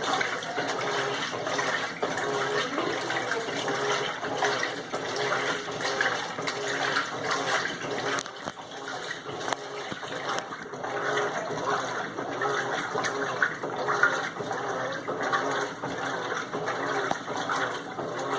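Water splashing and swishing inside the tub of an Electrolux LTM15 washing machine, an uneven, continuous churning.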